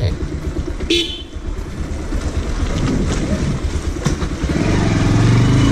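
Bajaj Pulsar 180's single-cylinder engine running as the motorcycle pulls away, with a short horn toot about a second in. The engine grows louder and rises in pitch near the end as the bike speeds up.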